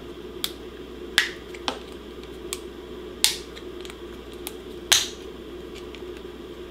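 Red-handled hand cutters snipping and cracking pieces off a Penny and Giles fader's blue body: about seven sharp clicks spread over several seconds, the loudest about a third and two-thirds of the way through.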